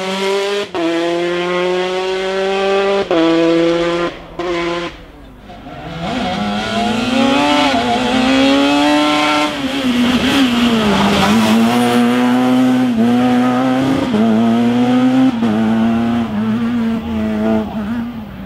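Rally car engine at full throttle, revving up through the gears with short breaks at each upshift, then lifting off briefly. The engine comes back loud a couple of seconds later and holds high revs, its pitch rising and falling.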